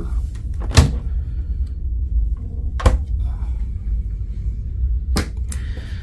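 Wooden cabinet doors knocking and clicking as they are handled: four sharp knocks, one about a second in, one near three seconds and two close together near the end, over a steady low rumble.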